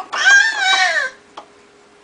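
A baby's high-pitched squeal, about a second long, that falls in pitch at its end, followed by a short click.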